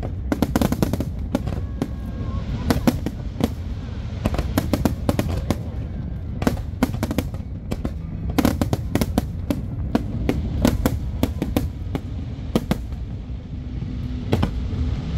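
Aerial firework shells bursting in rapid volleys: many sharp bangs and crackles, some almost overlapping, over a continuous low rumble.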